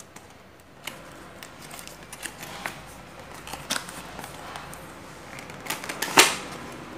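Small cardboard earphone box and its clear plastic tray being handled and opened: light rustling with scattered clicks and taps, and one louder, sharper scrape just after six seconds in as the tray slides out of the sleeve.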